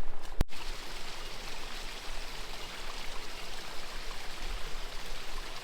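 River water flowing steadily, a continuous rushing, with a brief break in the sound about half a second in.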